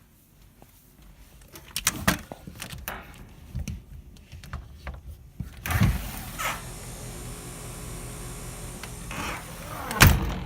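Carrier Performance Series two-stage air conditioner's outdoor unit running in low stage: a quiet, steady hum. Several knocks and rustles are heard in the first half. After a bump about six seconds in, the hum becomes louder and steadier with several even tones. A sharp bump comes near the end.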